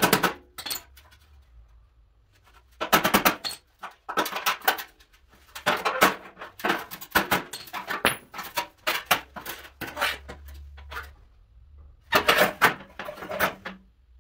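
Metalworking hammer striking the sheet steel of a dented classic car fender in quick bursts of blows, several strikes at a time with short pauses between, hammer-and-dolly dent straightening. The heaviest burst comes near the end.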